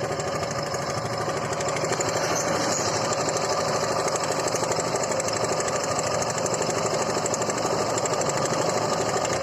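Suzuki Gixer single-cylinder motorcycle engine idling with a loud, rapid metallic clatter, like something clashing inside it. The owner puts this down to a timing chain that has gone too loose for the timing chain tensioner to take up.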